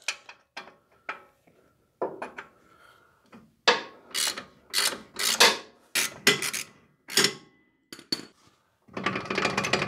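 Hand ratchet and wrench clanking and clicking on the steel lower mounting bolt of an old front shock absorber as the bolt is worked loose, with a quick run of ratchet clicks near the end.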